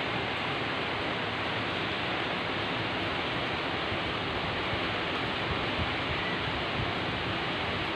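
Heavy rain falling, a steady, even hiss with no breaks.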